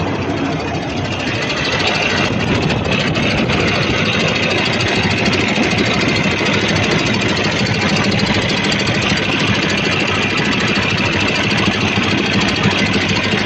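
Cummins ISX inline-six diesel engine idling steadily. A steady high hiss joins the engine sound about a second in.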